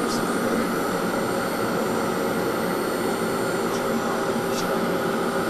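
Steady drone of the SR.N4 hovercraft's gas turbines heard inside the flight deck: an even rushing noise with several steady whining tones running through it.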